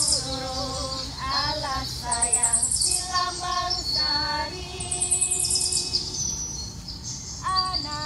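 A high voice singing short phrases with wavering, sliding pitch. Bursts of rapid, high chirping trills sound above it every few seconds.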